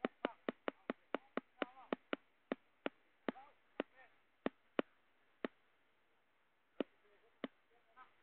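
A series of sharp clicks, about four a second at first, then slowing and spreading out, with the last few several seconds apart.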